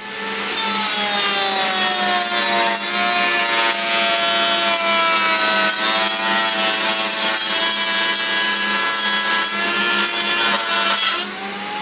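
Router in a router table running a rabbeting bit through a pine board, a steady high whine with wood-cutting noise. The pitch sinks a little as the bit takes load in the cut. Near the end it rises again and gets quieter as the board clears the bit.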